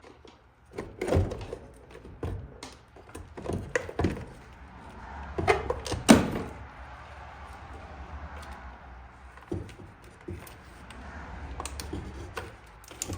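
Scattered clicks and knocks, with the loudest about six seconds in, as the windshield wiper linkage is worked off the wiper motor mechanism of a 1978 Corvette.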